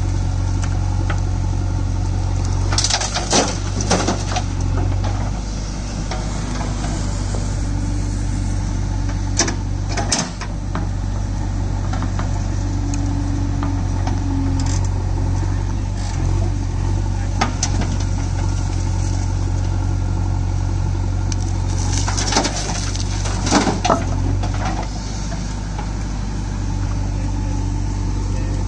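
JCB 3DX backhoe loader's diesel engine running steadily under load while it digs, with scattered clanks and thuds as the steel bucket scrapes soil and dumps earth and stones into a steel tractor trolley, bunched about three seconds in, around ten seconds, and again near the end.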